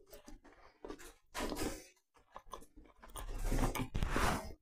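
A person chewing a mouthful of freshly baked blueberry scone close to a clip-on microphone: irregular soft chewing noises, with a longer, louder stretch in the second half.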